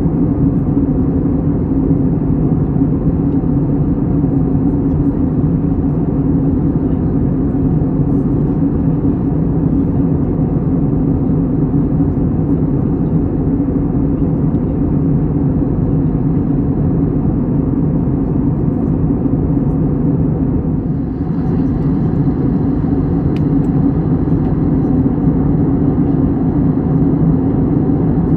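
Steady low drone of a moving vehicle, even and unbroken, with a brief slight dip about 21 seconds in.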